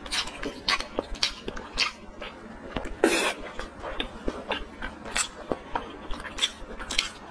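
Sticky, wet tearing and squelching as a sauce-glazed piece of meat is pulled apart by hands in plastic gloves, in a run of short crackles and clicks, with a louder rustling burst about three seconds in.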